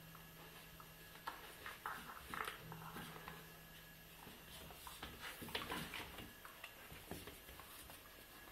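A Hungarian vizsla playing with a knotted rope toy on a tiled floor: scattered soft knocks and clicks of claws and toy on the tiles. A low steady hum comes in twice in the first half.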